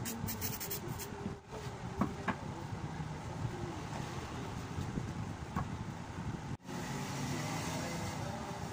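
Steady low rumble of background noise, with a few light knocks and clicks as a cricket bat is moved about on a wooden workbench. The sound drops out sharply for a moment about two-thirds of the way through.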